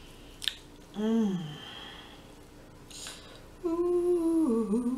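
A woman humming "mmm" while eating: a short hum that falls in pitch about a second in, then a longer hum near the end that holds steady, then dips and rises. A sharp click about half a second in.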